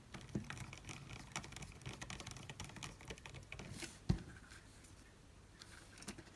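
Small clicks and scrapes of a precision screwdriver working the screws of a screw-terminal block on a circuit board while wires are fitted, with one louder click about four seconds in.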